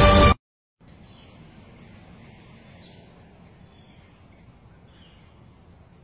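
Loud music cuts off suddenly just after the start. After a brief silence comes faint outdoor ambience with small birds chirping, about a dozen short high chirps spread over the next few seconds.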